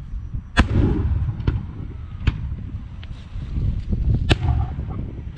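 Aerial firework shells bursting: a loud bang about half a second in and another sharp one about four seconds in, with a few smaller cracks between, over a steady low rumble.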